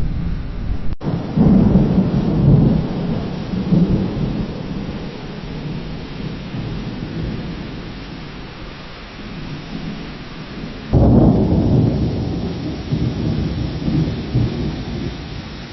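Distant thunder rumbling in two separate peals. The first swells in about a second in and fades slowly over several seconds. The second starts abruptly about eleven seconds in and rolls on to the end, with a steady hiss underneath.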